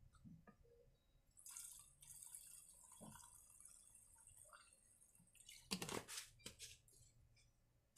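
Petrol poured from a bottle through a funnel into a chainsaw's fuel tank: a faint trickle, with a few handling knocks about six seconds in.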